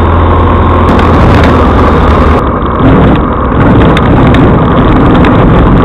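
Light aircraft's engine and airflow heard loud inside the cockpit on landing. The steady engine drone drops away about two and a half seconds in as power comes off, then a run of short knocks and rattles follows as the plane comes down onto the grass strip.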